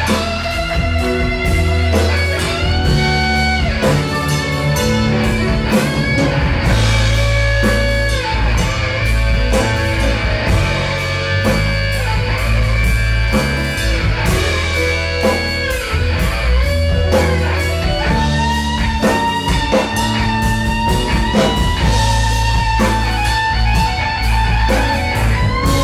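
Live band music: an electric guitar plays long, held lead notes over bass guitar and a steady drum beat.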